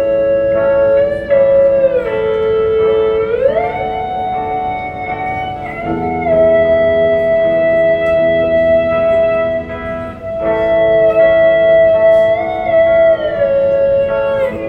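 Electric guitar played through an amplifier: a slow melody of long held notes that glide smoothly from one pitch to the next, over lower held chords that change twice.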